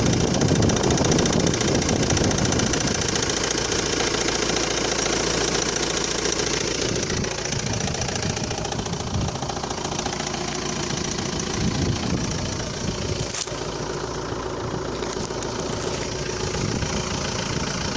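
Renault Scénic II engine idling cold with a steady rapid knock from its crankshaft damper pulley, which has come apart, settling a little quieter after about seven seconds. A failed damper pulley like this is better replaced soon, as in some cases it can lead to bent valves.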